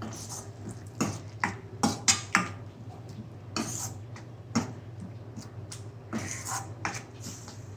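A stirring utensil scraping and knocking against a pan in irregular strokes as a thick ground paste is sautéed, over a steady low hum.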